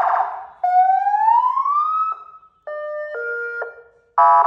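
Loud 200-watt electronic VIP car siren on a compact horn speaker, switched through its tones by wireless remote. A buzzy horn blast gives way to a rising wail about half a second in. A short two-tone hi-lo pattern follows, then another buzzy horn blast near the end.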